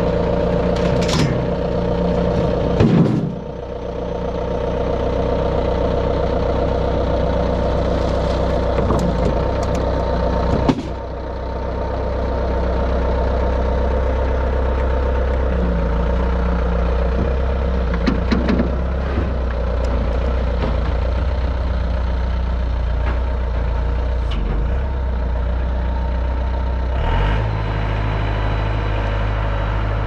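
Skid steer's diesel engine running steadily as the machine backs down off a trailer, its note shifting about three seconds in and again near the end. A few sharp knocks and clanks from the machine and trailer, the loudest about eleven seconds in.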